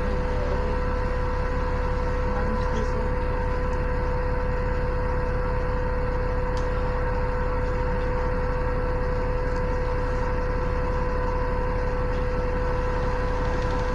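Alexander Dennis Enviro400 double-decker bus standing with its engine idling, heard from inside the passenger cabin: a steady low rumble with a constant whine over it.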